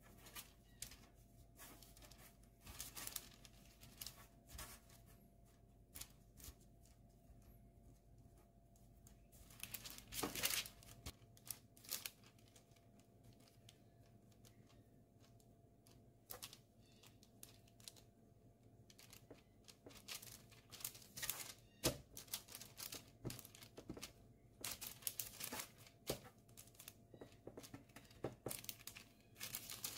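Faint, irregular rustling of baking parchment with scattered soft clicks and taps as hands roll bread dough around a sausage and pinch its seams on a baking tray. The handling noises cluster a little louder about ten seconds in and again through the last third.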